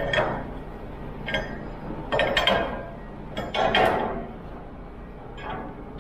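Steel container lashing bars and turnbuckles clinking and clanging as they are handled and checked by hand: a series of ringing metal knocks, loudest about two and four seconds in.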